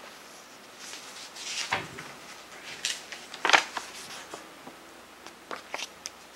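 A CD case and its paper insert being handled: a handful of short clicks and paper rustles, the sharpest about three and a half seconds in, as the insert is worked out of the case.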